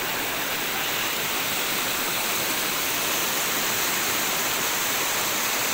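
River water flowing over a rocky bed, a steady rushing noise with no change.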